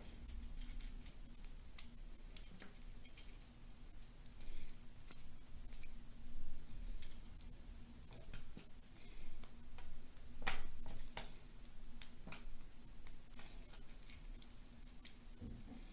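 Lego bricks clicking as they are handled, fitted together and pulled apart: irregular small, sharp plastic clicks, a few of them louder.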